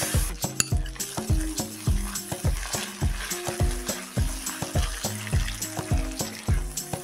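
Shrimp and spiced onion masala frying and sizzling in a nonstick wok while a spatula stirs it, under background music with a steady beat.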